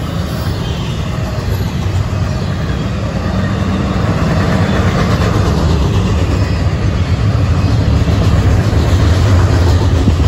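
Union Pacific double-stack container train rolling past: steady low rumble of steel wheels on the rails, growing a little louder toward the end.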